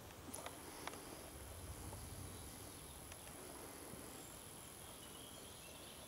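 Faint, steady high-pitched buzz of an insect stridulating in the meadow grass, starting about half a second in, over a low rumble and a few soft clicks early on.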